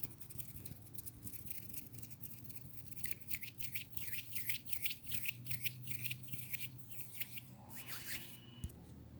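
Rapid, scratchy brushing strokes, several a second, rubbed close to the microphone, with a sharp click near the end.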